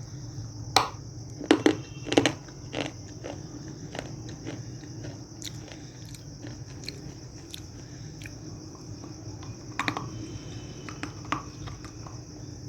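Close-up biting and chewing of hard pieces of baked edible clay ('black chips'): a few loud crunching bites about one to two seconds in and again around ten seconds, with softer crunching chews in between. A steady faint hum and hiss runs underneath.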